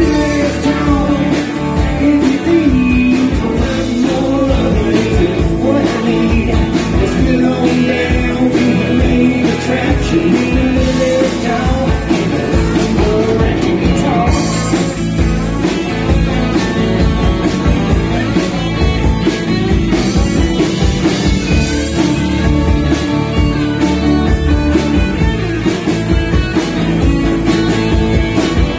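Live band playing a rock song: electric guitar over a steady drum beat, heard through the bar's PA speakers.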